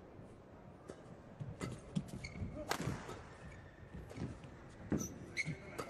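Badminton shoes squeaking briefly on the court mat, mixed with scattered footfalls and sharp taps.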